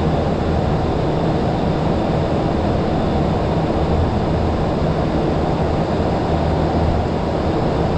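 Steady flight-deck noise of a Boeing 737-800 climbing after take-off: a constant rush of air with a low engine drone under it, unchanging in level.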